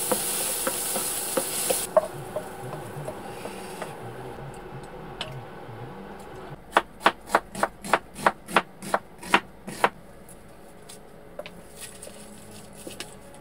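Mushrooms sizzling in a frying pan as they are stirred with a wooden spoon, the sizzle cutting off about two seconds in. Later comes a run of about a dozen even knife strokes, about three a second, slicing onion on a wooden cutting board.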